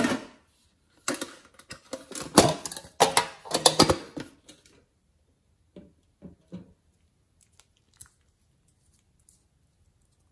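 Sticky, crackling clicks of hands working glossy slime in a glass dish for about four seconds, then a few soft knocks and a click as a glass bottle of glitter nail polish is handled and opened.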